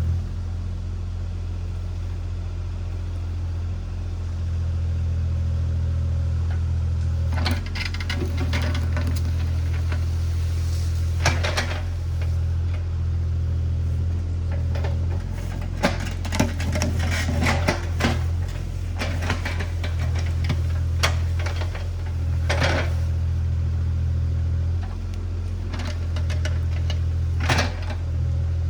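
Diesel engine of a compact earthmoving machine running steadily at constant speed. From about a quarter of the way in, it is joined by repeated sharp cracks and knocks in clusters, like wood and debris breaking and knocking against the machine.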